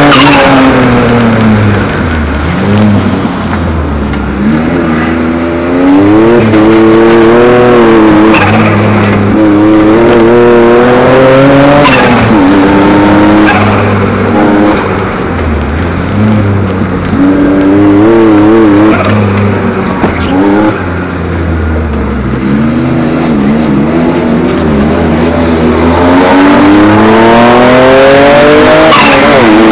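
Ford Capri Turbo's engine heard loud from inside the cabin, revving up and dropping back again and again as the car accelerates and slows through a tight course. The revs fall at the start and climb hard near the end.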